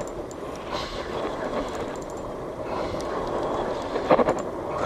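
Steady noise aboard a small fishing boat at sea, with a brief louder burst about four seconds in.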